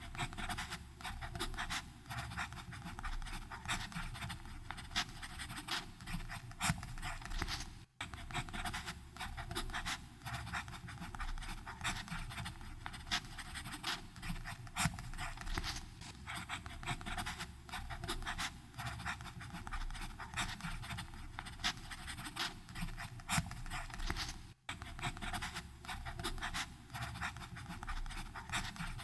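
Fountain pen nib scratching across paper in quick, irregular strokes of continuous writing, broken twice for an instant.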